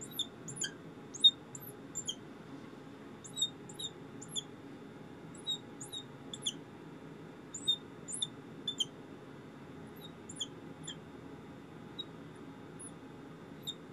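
Fluorescent marker squeaking on a glass lightboard as short lines are drawn: brief high squeaks, one or two at a time, coming in irregular clusters with each stroke.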